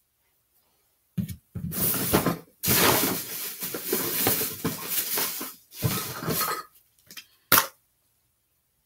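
Rustling and clattering of hands rummaging through and moving small objects, in several bouts, with a sharp click near the end.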